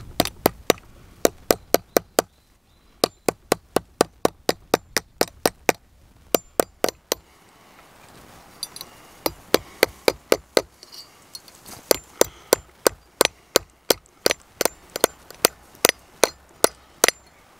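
Small hammer striking a copper strip wrapped on a steel rod over an anvil, cold forging: quick sharp metallic taps, about three to four a second, in runs broken by short pauses.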